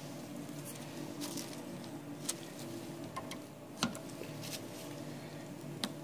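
Light plastic clicks and taps of a sample cuvette being handled at a bench spectrophotometer, over a steady low hum; four clicks, the sharpest about four seconds in.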